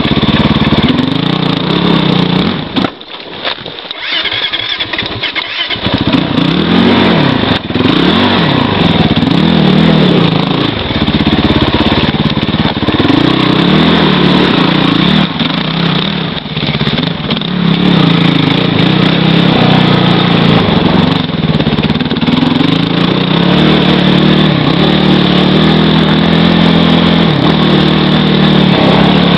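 Kawasaki KFX450R quad's freshly rebuilt single-cylinder four-stroke engine running while riding, the revs rising and falling. A few seconds in it drops off sharply for about three seconds, then comes back with several quick rising-and-falling revs before settling into steadier running.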